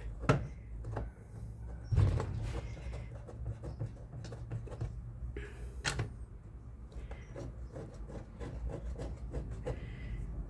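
Hand tools and washing machine parts clicking and knocking as they are handled while the base screws are fitted, with sharper knocks about two and six seconds in, over a low steady hum.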